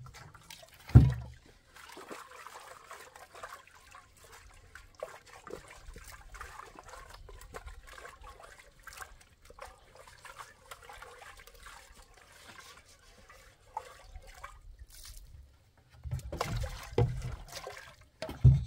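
Water poured from a plastic container into a metal cooking pot and swished around as the pot is washed by hand, with a thump about a second in and heavier pouring near the end.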